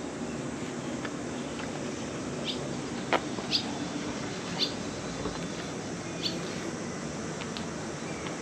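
Scattered short bird chirps, about five high notes over a few seconds, over a steady outdoor background noise, with one sharper click about three seconds in.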